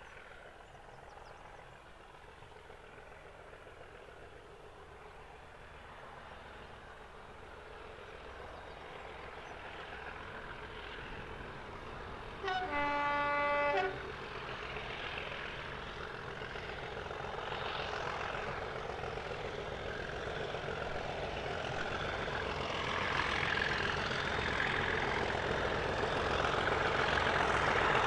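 Class 37 diesel locomotives with English Electric V12 engines working hard up a bank, growing steadily louder as the train approaches. One horn blast of about a second and a half, about halfway through, is the loudest sound.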